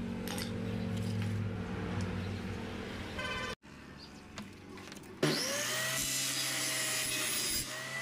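A circular table saw switched on about five seconds in: its motor and blade spin up with a quickly rising whine that settles into a steady running pitch. Before that, a steady low hum.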